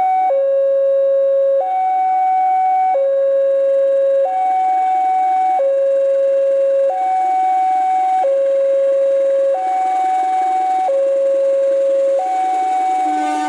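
Railway level-crossing warning alarm sounding a steady two-tone hi-lo signal, each tone held about a second and a quarter, warning that a train is approaching. A further pitched sound joins near the end.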